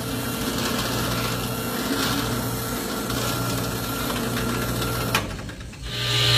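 Electric woodworking power tool running steadily with a hum. About five seconds in there is a sharp click and the sound drops briefly, then a louder, hissier cutting noise builds near the end.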